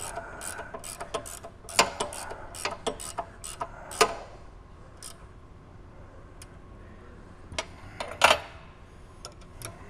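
Hand ratchet wrench clicking in a run of short strokes as a bolt is tightened, the clicking stopping about four seconds in. A few sharp metallic knocks follow, the loudest shortly before the end.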